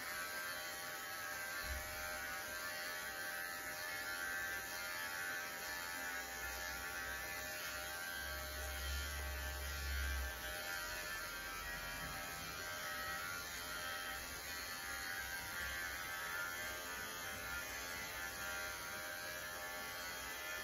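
Cordless dog grooming clippers fitted with a 16 mm comb attachment, running with a steady electric buzz as they are worked through a puppy's coat. A brief low rumble near the middle.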